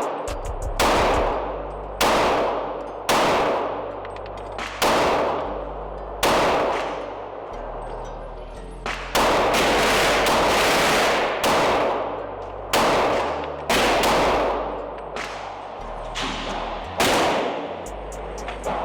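Glock 23 .40 S&W pistol firing about fifteen shots at a steady pace of roughly one a second, each shot echoing with a long fading tail. A low bass line of background music runs underneath.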